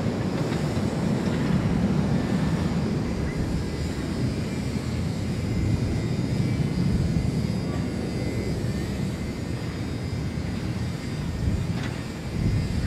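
Airliner engines rumbling steadily as a plane takes off or lands close by.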